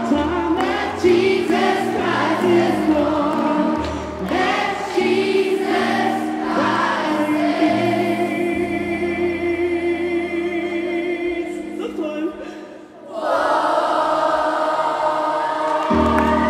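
Children's choir singing a gospel medley. About halfway through, a long held chord fades away, and after a brief dip the choir comes back in loud and full near the end.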